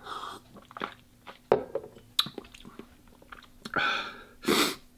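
A man swallowing milk from a glass, with small mouth clicks and a sharp knock about a second and a half in, then chewing and two loud breathy bursts near the end.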